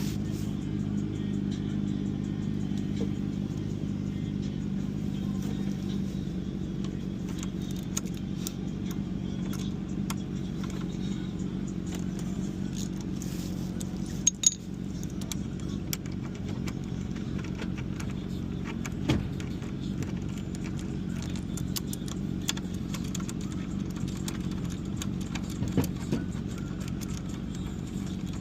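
Metal tools clinking and scraping against the brake caliper as its 12 mm mounting bolts are undone with a socket, with a few sharper clinks about halfway through and again near the end. A steady low hum runs underneath.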